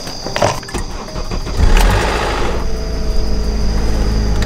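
Honda car engine being started: a brief burst of starter cranking about one and a half seconds in, then the engine catches and settles into a steady idle.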